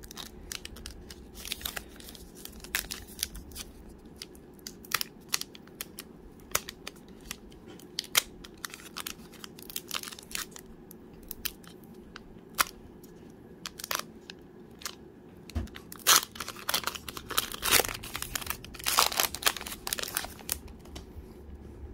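Foil trading-card pack wrapper being torn open and crinkled by hand, a run of sharp crackles and rustles that grows loudest and densest about three-quarters of the way through.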